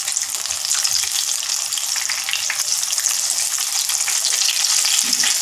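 Semolina-coated veggie patties deep-frying in hot oil in a kadai: a steady sizzle full of small crackles, while a spatula turns them in the pan.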